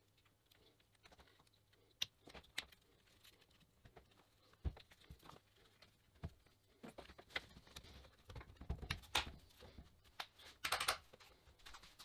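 Faint, scattered clicks and knocks of plastic parts and wiring being handled as an angle grinder's switch and handle housing are fitted back onto the motor body, with a dull knock about halfway through and a quick cluster of clicks near the end.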